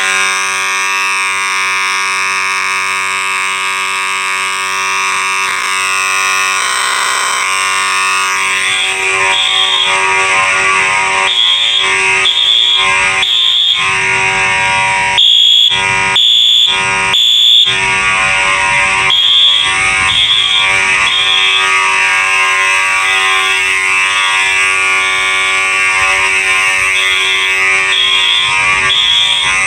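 Electromechanical Faraday horn strobe and an electronic Wheelock AS horn strobe sounding together: a loud, harsh, angry-sounding buzz. From about a third of the way in, a higher-pitched horn tone blasts on and off in short repeated pulses.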